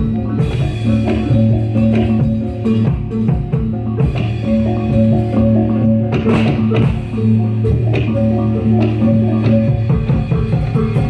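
Reog Bantul ensemble music: drums beating a dense, steady rhythm under short repeated pitched notes and sustained low ringing tones.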